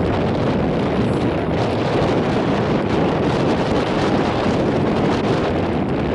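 Steady wind noise buffeting the microphone.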